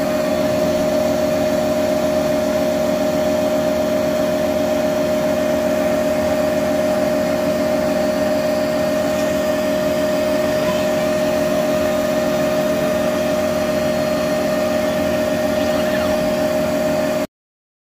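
Laser cutter running as its head traces out a sheet of phone back film: a steady machine hum with a constant whine. It stops suddenly near the end.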